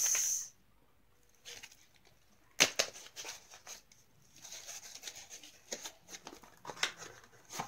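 Cardboard packaging of an eyeshadow palette being handled: a brief swish at the start, a sharp click about two and a half seconds in, then small clicks, scraping and rustling as the palette is slid out of its cardboard sleeve.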